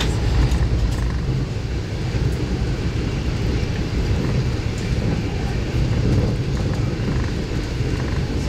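Passenger train running along the line: a steady low rumble of wheels rolling on the track, even throughout.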